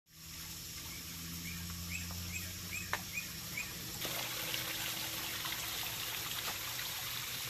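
Small stone waterfall trickling and splashing steadily into a backyard pond. A bird sings a quick run of about seven short, evenly spaced chirps between about one and four seconds in.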